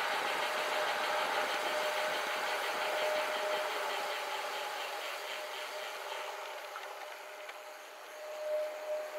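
Gravel bike coasting fast down a paved street: tyre and air rush with the fast buzzing tick of the freehub ratchet, and a thin whine that comes and goes. The sound swells briefly near the end as the bike slows for a stop sign.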